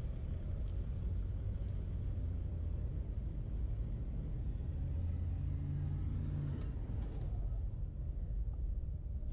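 City street traffic: the low rumble of road vehicles, with one engine passing closer about five seconds in. The hissy upper part of the noise cuts off about seven seconds in.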